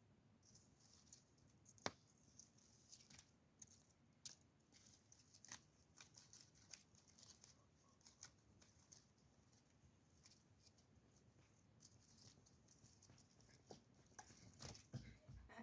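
Near silence with faint, scattered, sharp clicks and taps, the clearest about two seconds in and more of them near the end.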